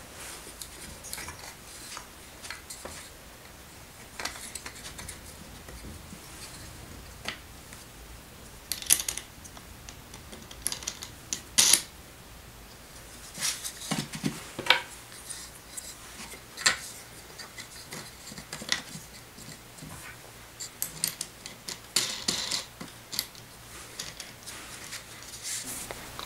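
Wooden easel parts and a metal bolt handled and fitted together by hand: scattered light clicks and wooden knocks, a few of them louder.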